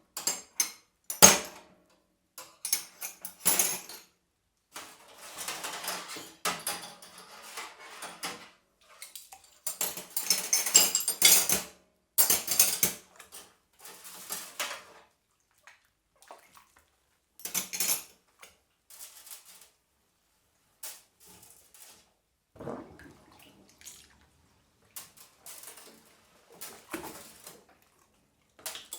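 Dishes being washed by hand in a sink: plates and cutlery clatter and clink on and off among splashing water, with short pauses between. There is a sharp knock about a second in, and a denser, louder run of splashing and clatter around ten to thirteen seconds in.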